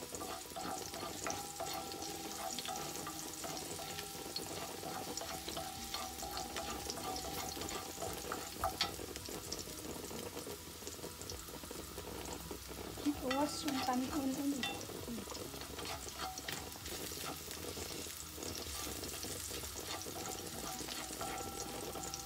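Chopped garlic sizzling in oil in a stainless-steel frying pan, stirred with a wooden spoon that taps and scrapes against the pan. A brief pitched sound stands out about thirteen seconds in.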